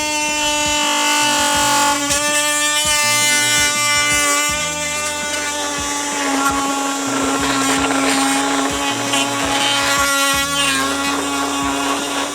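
Oscillating multi-tool with a Spyder wood-and-PVC blade cutting, a steady high buzz with a rasping cutting noise. Its pitch dips slightly about halfway through as the blade bears into the cut.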